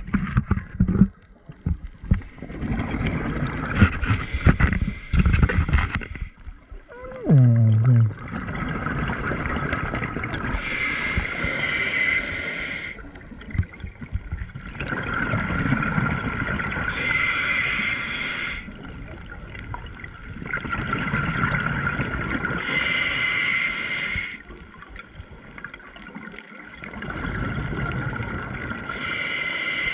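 Scuba diver breathing through a regulator underwater, a slow cycle of breaths with a burst of exhaled bubbles about every six seconds. Irregular knocks in the first few seconds, and a short falling groan about seven seconds in.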